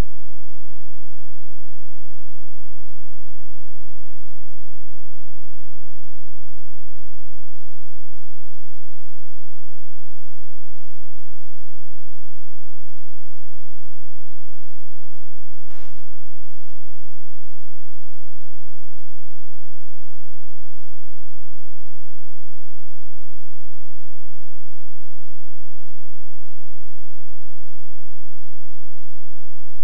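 Loud, steady electrical mains hum with a dense stack of overtones and no speech audible, the sign of a faulty audio feed. A single brief click about halfway through.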